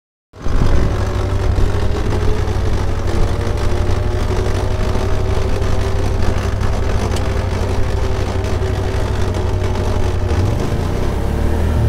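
ATV engine and drivetrain running as the quad coasts downhill freewheeling, with a steady whine over the engine. Its engine braking has failed. Near the end the throttle is blipped, the revs rising and falling briefly without bringing the engine brake back.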